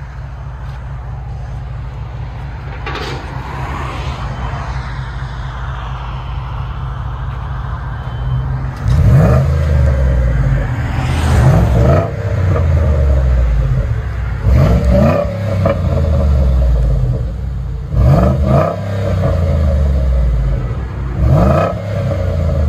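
2011 Ford F-150's 5.0 L Coyote V8, exhausting through a single 3-inch system with the resonator kept and a Flowmaster Outlaw muffler, idling steadily. About nine seconds in it is revved in about five short blips, each rising and falling back to idle.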